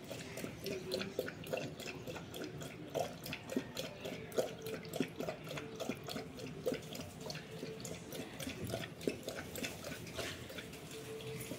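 A golden retriever lapping water from a plastic container: a quick, uneven run of wet laps and splashes.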